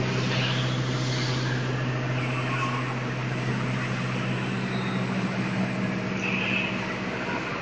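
Steady low hum and whir of running assembly-line machinery, a constant drone over a broad even noise.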